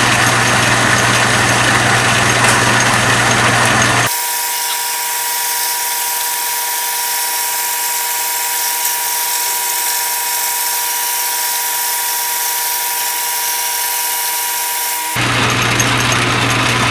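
Atlas metal lathe running under its lightest power feed, its motor and gear train humming steadily while it takes a light cut. About four seconds in the sound changes abruptly to a thinner steady whine with one clear tone and no low hum, and switches back just as abruptly about fifteen seconds in.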